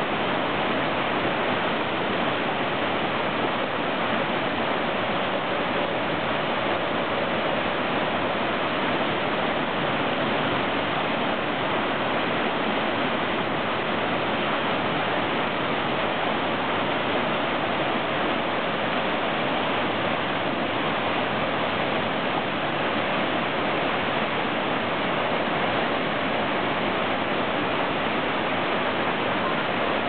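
Mountain stream pouring down a stepped waterfall over granite boulders: a steady rush of falling water that holds at one level throughout.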